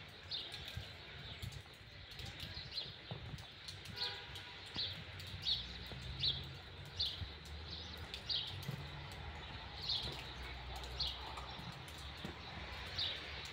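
A small bird chirping over and over, short high notes that fall slightly, repeating about once a second over a steady low rumble.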